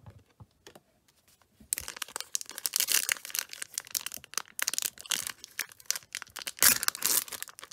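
Foil wrapper of a Panini Prizm Draft Picks trading card pack crinkling and tearing as hands work a stubborn pack open. The crackling starts a little under two seconds in and keeps on in quick rustles.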